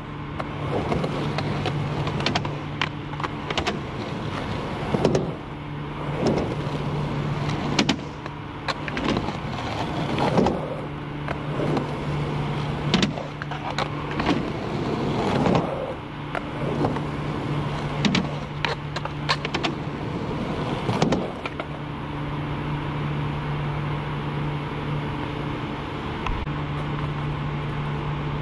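Skateboard wheels rolling on concrete, with repeated clacks, knocks and scrapes of the board against a skatepark ledge during frontside noseslide attempts over the first twenty seconds or so. A steady low hum runs underneath and is left almost alone near the end.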